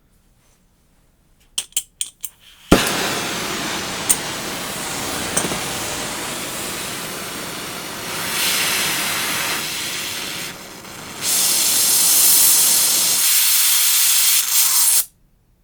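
Oxygen-fed gas torch: a few sharp clicks, then it lights with a pop and burns with a steady hiss. The hiss gets louder about midway, dips briefly, swells again, and cuts off suddenly near the end.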